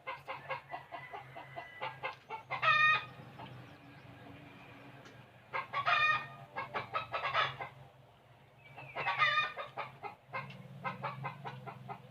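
Chickens clucking, with three louder squawking calls about three, six and nine seconds in, over many short clicks and a faint steady low hum.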